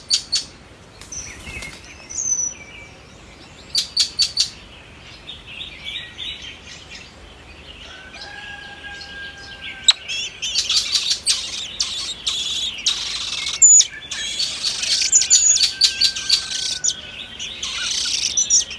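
Nestlings cheeping and chirping, begging as a parent bird feeds them. The chirps are scattered at first and grow denser and louder about halfway through.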